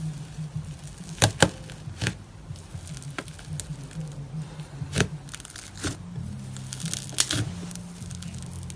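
Slime being handled and squeezed, giving irregular sharp crackling pops and snaps, about eight of them, the loudest a little over a second in and around seven seconds in.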